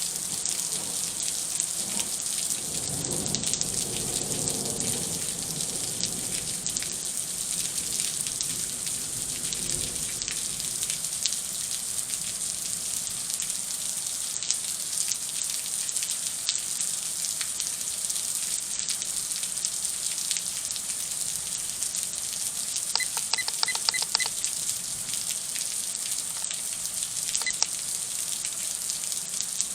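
Heavy rain falling during a thunderstorm: a steady hiss with many sharp drop impacts. A low rumble of thunder comes about two seconds in and fades after a few seconds.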